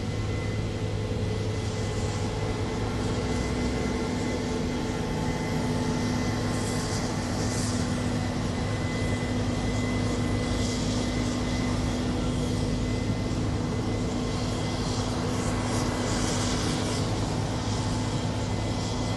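Combine harvester threshing winter barley, with a tractor pulling a grain trailer: a steady engine drone with a constant high whine over it.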